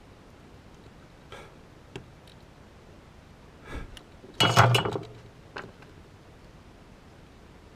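A few faint clicks, then, about halfway through, a loud short clatter with a brief ring: a small hard object knocked or set down on the workbench while a circuit board is being soldered.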